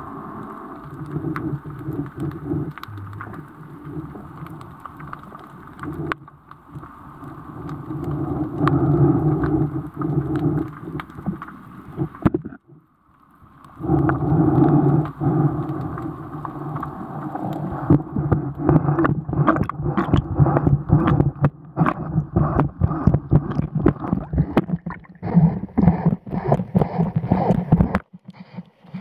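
Muffled water sound recorded underwater through an action camera's waterproof housing, with many short knocks and rubbing that come thick and fast in the second half.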